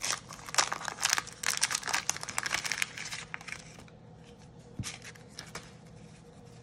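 A 1987 Topps wax-paper pack wrapper being torn open and crinkled by hand: a quick run of rips and rustles for about three and a half seconds. Then quieter handling of the card stack, with a single click near the five-second mark.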